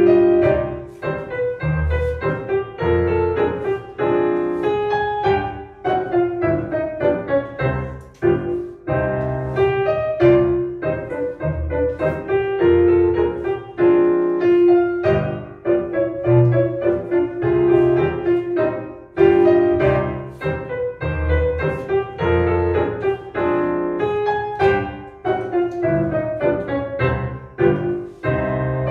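Solo piano playing classical ballet-class accompaniment: a steady stream of struck notes with a falling melody that repeats every few seconds.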